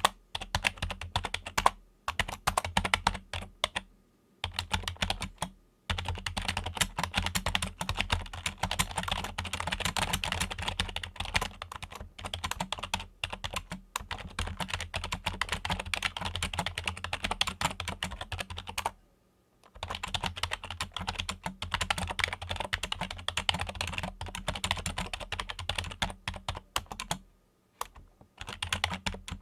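Fingers typing on a Logitech computer keyboard: rapid, continuous runs of key clicks, broken by a few brief pauses of a second or two.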